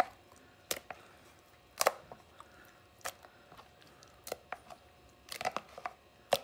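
A hand squishing pieces of flounder through thick beer batter in a plastic tub: short, sharp wet squelches and slaps about a second apart, with a quick run of several near the end.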